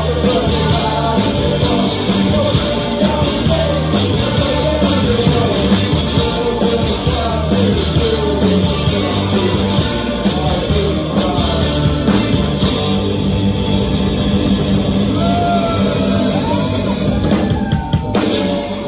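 Rock band playing live: distorted electric guitars and bass over a pounding drum kit, with a voice singing.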